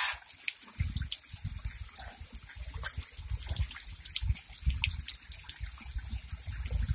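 Spring water trickling steadily from a fountain spout, with a low, uneven rumble underneath and a few faint clicks.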